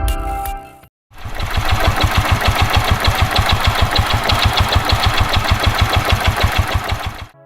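Suzuki Shogun 125's single-cylinder four-stroke engine idling steadily with an even, rapid putter. It comes in about a second in and stops abruptly near the end.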